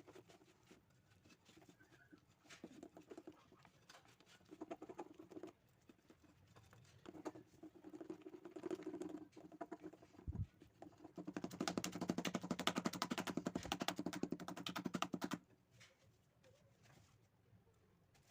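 Kitchen mixing sounds: several short bursts of rapid ticking and scraping in a bowl, then a louder, denser run of about four seconds near the end, as when cake batter is mixed.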